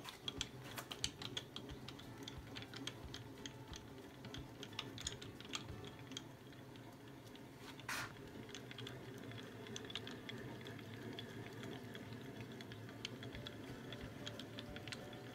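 Mini mill table being cranked along by its handwheel: a run of small, irregular clicks and rattles from the leadscrew and table slides, with one louder knock about halfway through.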